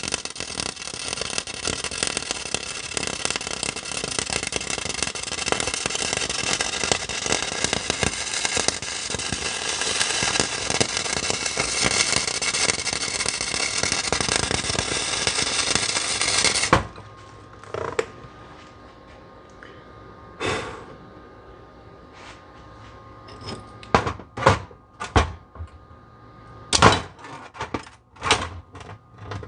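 MIG welder running a bead on cast iron: a steady, dense crackle that cuts off suddenly about seventeen seconds in. After it come a few separate sharp knocks and clicks.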